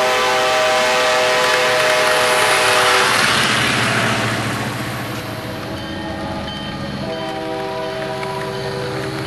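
Multi-note train horn blowing two long blasts: the first over a loud rushing rumble and ending about three seconds in, the second starting about seven seconds in and still sounding at the end.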